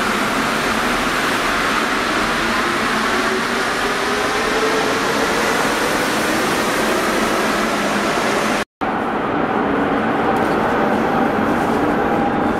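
Alsthom NS74 rubber-tyred metro train pulling out of the station, its running noise building with a motor whine that rises in pitch as it gathers speed. After a brief cut to silence about nine seconds in, a train runs steadily through the tunnel, heard from on board with a duller, steadier hum.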